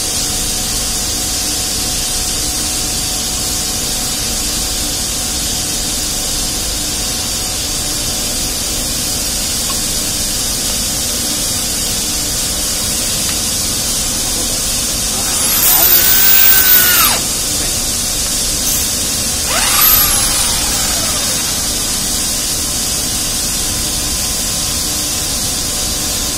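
Handheld electric drill turning a long-reach tube expander inside a tube: it spins up and runs for about a second and a half about 15 s in, then gives a second, shorter burst about 20 s in that rises and winds down. A steady hiss lies underneath throughout.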